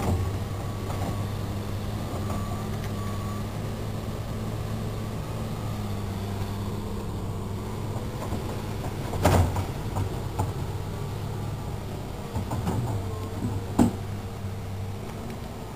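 Tracked hydraulic excavator's diesel engine running steadily as it digs a ditch, with two sharp knocks, one about nine seconds in and one near the end.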